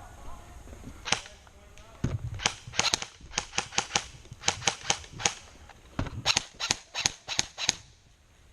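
Airsoft guns firing: a single sharp shot about a second in, then two strings of quick shots, about three or four a second, with a short break between them.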